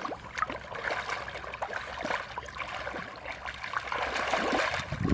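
Hands sloshing and splashing through shallow muddy water, groping for fish, with many small splashes; the splashing gets louder near the end.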